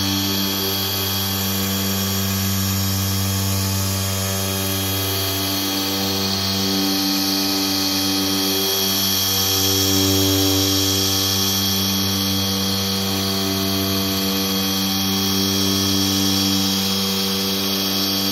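Ryobi cordless dual-action polisher running steadily while cutting car paint with compound, a constant motor whine that swells slightly in loudness now and then.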